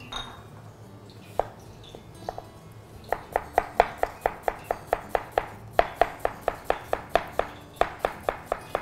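Kitchen knife slicing an onion on a plastic cutting board: a couple of scattered knocks, then from about three seconds in a steady run of cutting strokes, about four a second.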